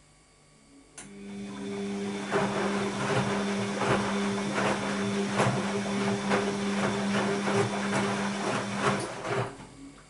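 Bosch WAB28220 front-loading washing machine turning its drum in a 30 °C quick delicates program. The motor starts with a click about a second in and runs with a steady hum, while the wet laundry tumbles and sloshes with uneven knocks. It stops again near the end.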